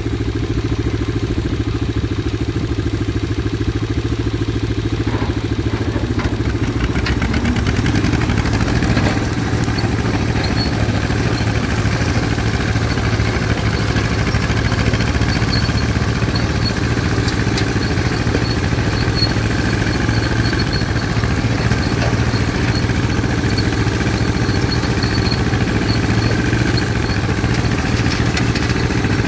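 1953 John Deere 40 tractor's two-cylinder engine running steadily under load, driving a bush hog rotary cutter through tall grass.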